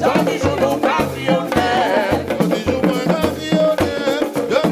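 Live Guadeloupean carnival drum-group music: hand drums beating a steady rhythm under singers at the microphone.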